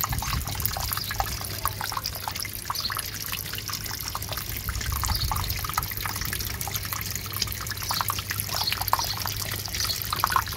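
Small pond fountain splashing and trickling into the water: a steady patter of many little drops.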